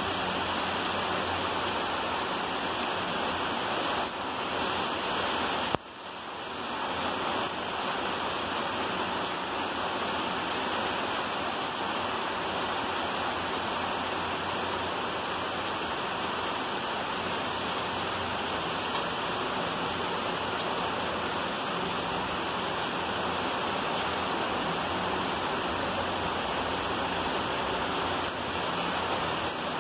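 Heavy rain pouring down steadily, heard from under a porch roof. About six seconds in there is a brief sharp jolt, after which the sound drops away and swells back.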